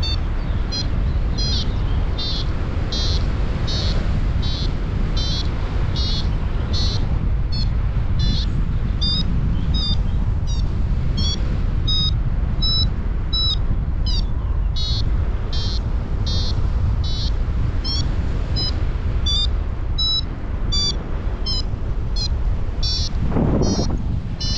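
A paragliding variometer beeps in short, high pulses, a little more than one a second. Their pitch shifts up and down, the sign of the glider climbing in lift. Under them runs a steady rush of wind on the microphone.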